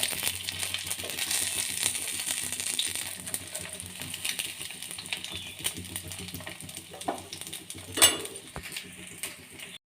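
Food sizzling and crackling as it fries in hot oil, with a sharp knock about eight seconds in and a brief cut-out of the sound near the end.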